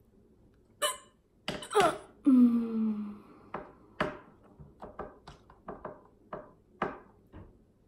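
A person's brief vocal noises with a falling pitch, then a run of short, sharp taps and scratches, a couple a second and irregular: a pen drawing on a paper plate.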